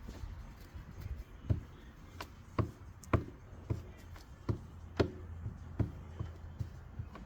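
A run of sharp taps, about two to three a second, some much louder than others.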